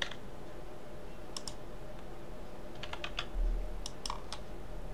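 A few scattered computer keyboard key presses and mouse clicks, in small groups about a second and a half, three and four seconds in, over a steady low hum.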